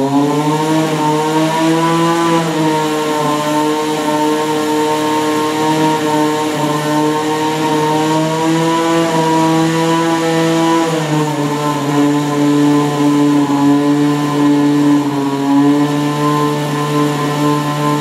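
Small rotary engine running steadily on diesel fuel, an even pitched drone that drops slightly in pitch about eleven seconds in.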